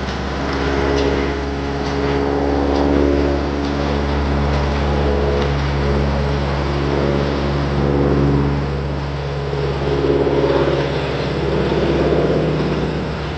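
Piston engine of a propeller aircraft running steadily, its drone swelling and fading every couple of seconds.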